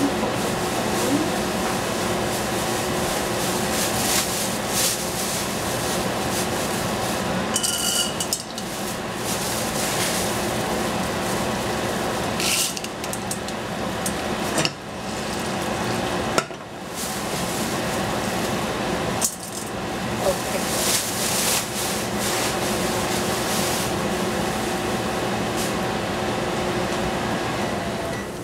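Food frying in a pan over a strong flame, a steady sizzling hiss broken by a few clinks and scrapes of a utensil against the pan.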